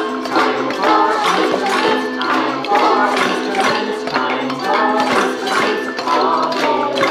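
Children singing a song together while tapping and shaking kitchen utensils (wooden spoons, pots, bowls and containers) as percussion on a steady beat, over sustained pitched notes.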